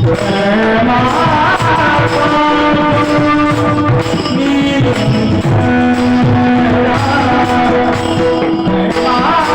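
A traditional Marathi devotional kirtan tune: a man singing a melody with wavering ornaments over held, steady accompanying notes of a harmonium and rhythmic percussion.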